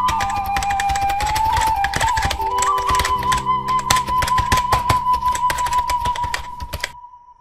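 Rapid keyboard-typing clicks, a typewriter-text sound effect, over background music with a held, wavering melody and low sustained notes. The clicks and low notes stop near the end, leaving the melody note fading.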